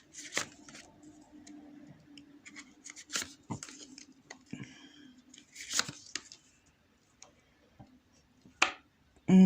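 Tarot cards being shuffled and drawn by hand: scattered crisp rustles and clicks, with a few sharper card snaps, the last and loudest near the end, over a faint steady hum.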